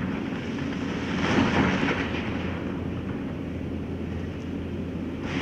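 A large engine running steadily with a low humming rumble, swelling for about a second roughly a second in.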